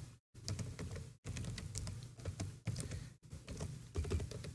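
Computer keyboard typing: a run of quick, irregular keystrokes as a password is entered, over a low steady background hum.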